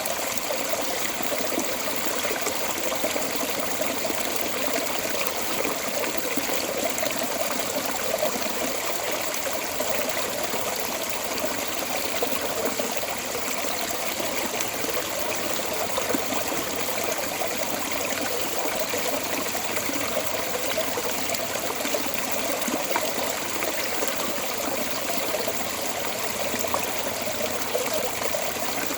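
Water running steadily out of a storm drain outlet, an even splashing trickle with no pauses.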